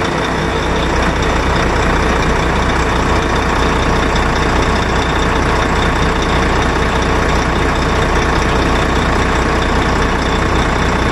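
Heavy truck's diesel engine running steadily, heard up close with a strong low hum.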